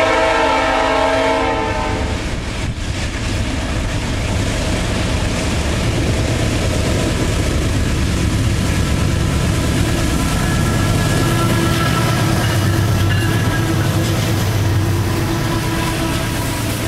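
Diesel freight locomotive's air horn sounding a multi-note chord that stops about two seconds in, followed by the heavy, steady running of the locomotives' diesel engines as the train passes close by. A faint steady whine joins in during the second half.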